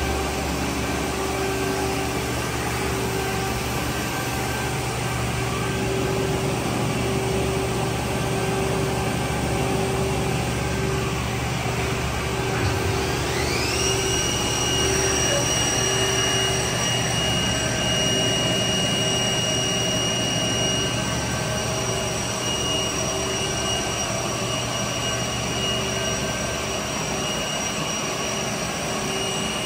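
Haas ST-20Y CNC turning center running under a steady hum of machinery. About 13 seconds in, a high whine rises in pitch over a second and then holds steady as the spindle spins up to speed.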